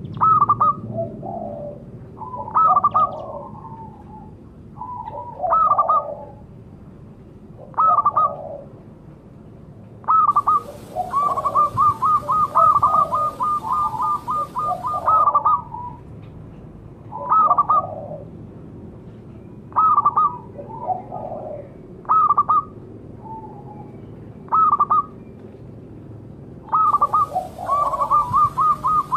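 Zebra dove (perkutut) cooing: short calls about every two seconds, with two longer runs of rapid staccato notes, one about ten seconds in and another near the end.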